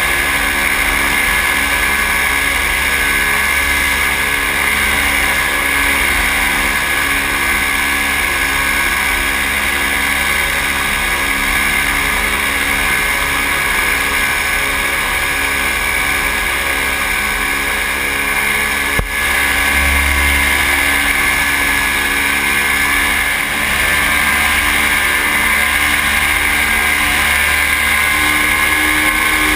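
Paramotor engine and propeller running steadily in flight, holding a constant pitch, with a short click and brief low thump about twenty seconds in.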